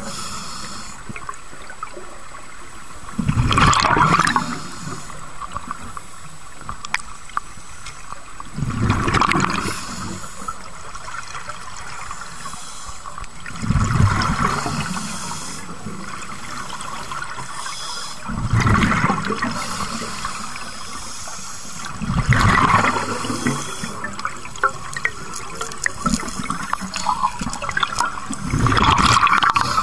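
Scuba diver breathing through a regulator underwater: six gurgling bursts of exhaled bubbles, about one every five seconds, with a quieter steady hiss between them.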